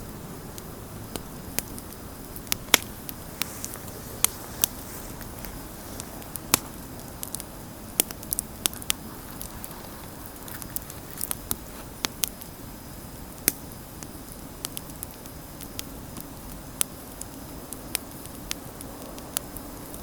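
Wood campfire burning, with irregular sharp crackles and pops, one to a few a second, over a steady low rush of the flames.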